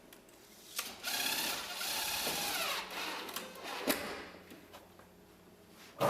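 Cordless drill-driver running for about two and a half seconds as it drives a fixing into an Onduline ridge piece, its pitch dropping as the fixing seats, followed by a single knock. A saw stroke starts right at the end.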